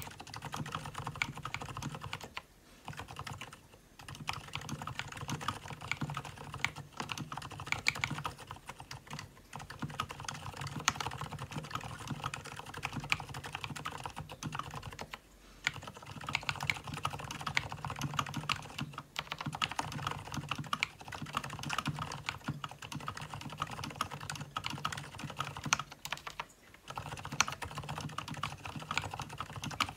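Continuous fast typing on an Mstone Groove T87A tenkeyless mechanical keyboard fitted with Gateron silent brown switches: a dense run of keystrokes, broken by short pauses every few seconds.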